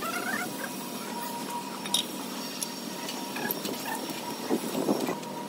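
Light clinks and knocks of stone cladding slabs being handled and set against a brick gate pillar, a few scattered taps with a small cluster of knocks near the end.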